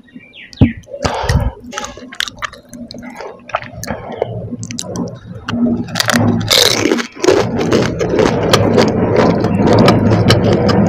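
Someone eating a pani puri (golgappa) whole: a few faint mouth clicks, then about six seconds in a crackle as the crisp puri shell breaks in the mouth with its liquid filling. It is followed by loud, wet, crunchy chewing with a full mouth.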